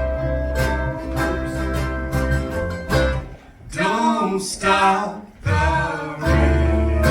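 A live band plays a song on guitar and bass. About three seconds in the instruments drop back and a voice sings a wavering phrase, and the full band comes back in near the end.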